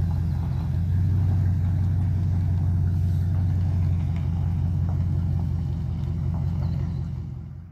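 Pickup truck engine idling steadily with a low, even hum. It cuts off sharply near the end.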